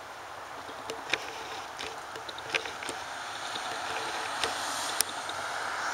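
Steady outdoor rushing noise that grows louder, with a few sharp light clicks scattered through it.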